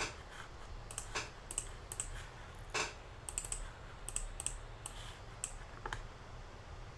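Computer mouse and keyboard clicks, irregular and about two a second, over a faint steady low hum.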